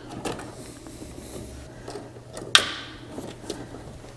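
A screwdriver working a heater hose clamp: small clicks, scrapes and handling noises, with one sharp clack about two and a half seconds in, over a faint low hum.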